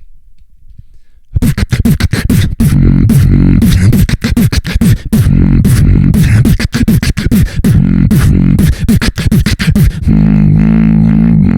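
Human beatboxing: after about a second of quiet, a fast run of sharp clicks and snares over heavy vocal bass. It ends in a long, held, pitched bass note.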